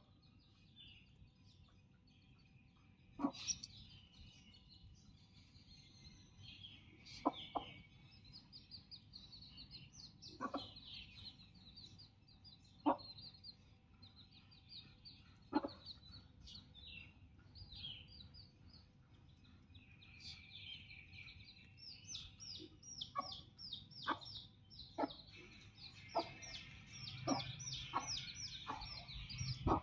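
Young chicks peeping in quick, high, falling chirps, growing busier in the last third, with a mother hen's short low clucks every few seconds.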